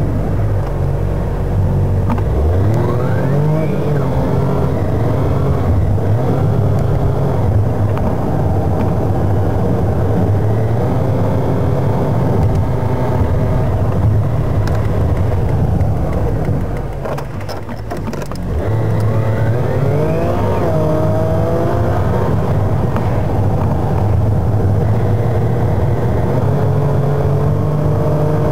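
A car engine and road noise heard from inside the cabin, sped up about two and a quarter times. The engine revs up as the car pulls away about two seconds in, eases to a brief lull past the middle, then revs up again and runs on steadily.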